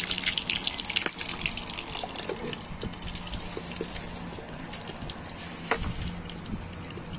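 Milkfish frying in hot oil in a small electric frying pan, sizzling and crackling densely at first, then quieter and more muffled after about two seconds once the glass dome lid is on. A single sharp click near the end.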